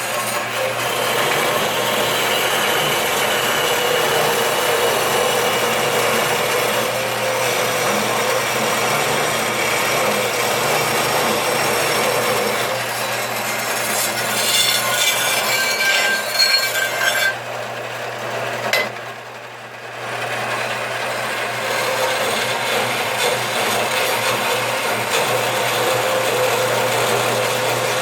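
Band saw cutting through a thick brass bar, a steady rasping cut. Around the middle a thin high ringing joins it, and a little later the cut eases off for about two seconds before going on.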